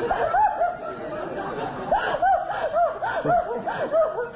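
People laughing, a run of quick, high-pitched peals that rise and fall in pitch and overlap one another without a break.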